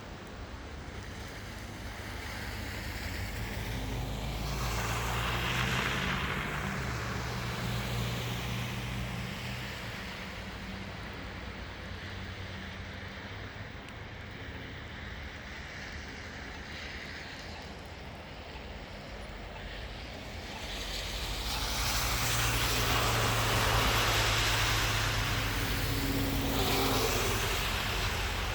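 Two vehicles pass one after the other, each a swell and fade of tyre and engine noise. The first goes by about five seconds in, and the second, slightly louder, near the end.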